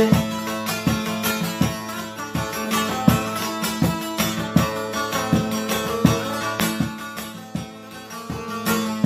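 Instrumental passage of a folk-style song: a plucked string instrument plays the melody over a held low drone, with a regular beat.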